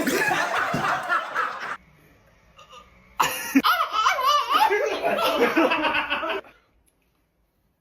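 People laughing loudly in two bursts, the first at the start and the second about three seconds in, each cutting off abruptly.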